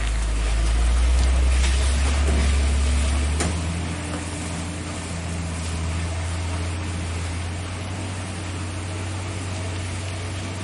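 Heavy truck's diesel engine pulling up a climb, a steady low drone that is loudest in the first few seconds and then eases a little.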